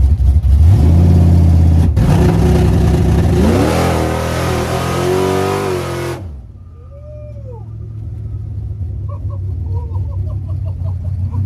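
Drag car engine at high revs, loud, with its pitch climbing, cutting off abruptly about six seconds in. Then a quieter engine running, slowly growing louder.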